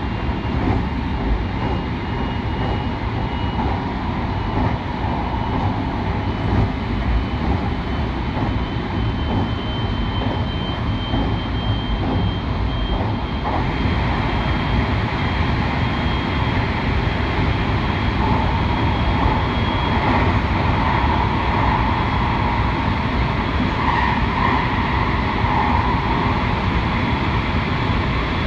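Electric multiple-unit passenger train running at speed, heard from inside the front car: a steady rumble of wheels on rail with a faint high whine that slowly rises in pitch. About halfway through, the train enters a tunnel and the noise gets fuller and slightly louder.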